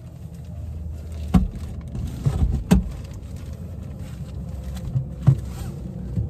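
A handful of thumps and some plastic rustling as a person shifts about on a car seat still in its plastic cover and arranges a scarf, over a low steady rumble inside the car. The sharpest thumps come about a third of the way in and again near the end.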